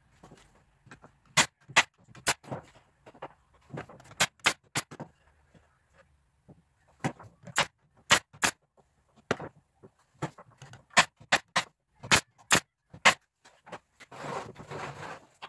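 Irregular sharp knocks and clicks of wooden parts being handled and tapped together during woodworking, with a short scraping noise near the end.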